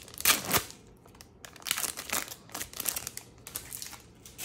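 Wrapper of a 2023 Donruss baseball card hobby pack crinkling as it is handled and torn open, in a series of short rustles that are loudest in the first second.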